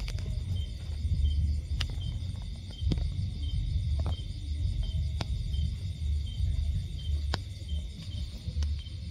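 Night insect chorus: crickets chirping in a steady rhythm of about three chirps every two seconds over a continuous high trill. Underneath is a constant low rumble, and several sharp clicks stand out.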